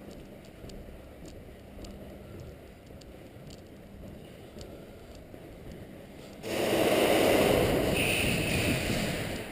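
Light footsteps and small ticks of gear, then a sudden loud rushing noise, about three seconds long, starting a little after six seconds in.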